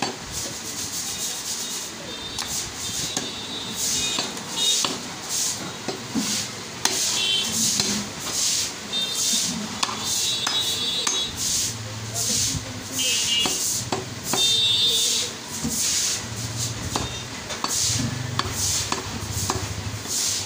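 Butcher's knife slicing through beef on a wooden chopping block: repeated rasping strokes, roughly one or two a second, with now and then a sharp tap of the blade on the wood.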